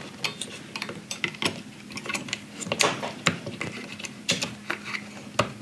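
Irregular clicks and light knocks of small parts being handled and fitted together while reassembling a car heater blower fan motor, over a steady low hum.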